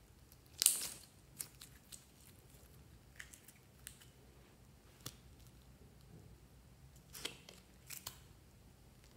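Glossy slime being laid down and handled in a glass tray: sticky clicks and small wet crackles as it lifts and presses, the loudest a short crackling burst about half a second in, another cluster near the end.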